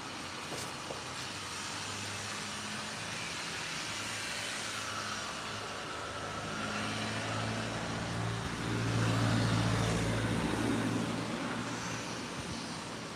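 A motor vehicle going by: a low engine hum with road noise that builds to its loudest about nine seconds in, then fades.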